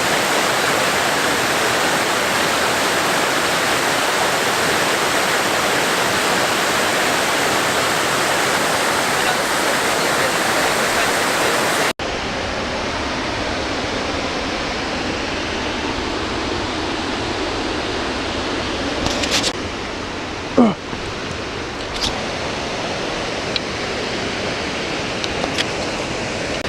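Waterfall running high, a loud, steady rush of falling water. About twelve seconds in it cuts to a slightly quieter take of the same rush, with a few faint clicks later on.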